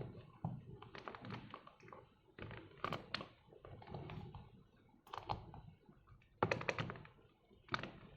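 Irregular plastic clicks and light knocks from a white glue bottle being squeezed and worked, in clusters about every second or so. The glue is thick and coming out only slowly.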